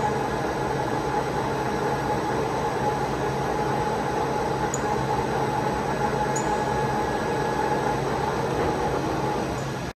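Large Škoda SRM 125/4000 CNC lathe running without cutting, a steady mechanical hum with a thin whine above it.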